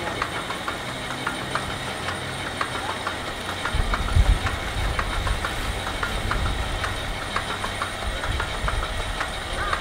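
Nakajima Sakae 21 fourteen-cylinder radial engine of a Zero fighter being turned over slowly by its starter, the propeller creeping round without the engine firing. A low churning rumble with rhythmic clicking, heavier from about four seconds in.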